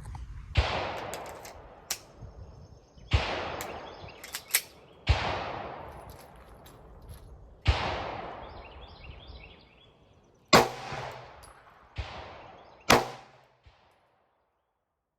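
Single gunshots fired one at a time, about seven sharp reports one to three seconds apart, each with a long echoing tail, with a few fainter pops between them.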